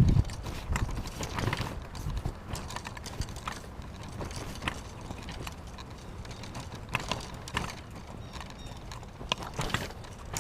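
Footsteps of a person walking over rough, brushy ground, with irregular clicks and knocks, heavier thuds right at the start.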